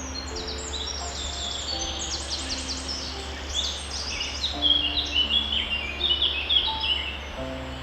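Several small birds chirping in quick, overlapping high chirps and short downward sweeps, loudest in the middle and stopping shortly before the end. Soft low held notes of background music and a steady low hum sit underneath.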